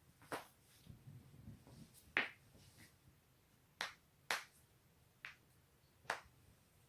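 Human joints cracking: six sharp pops at irregular spacing, the loudest about two seconds in.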